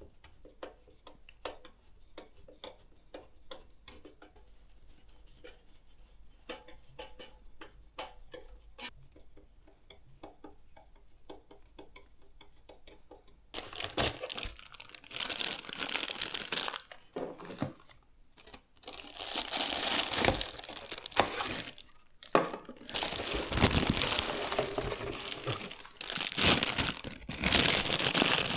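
Faint, irregular clicks of small parts being handled, then from about halfway loud crinkling and tearing as packaging is unwrapped, with a few short pauses.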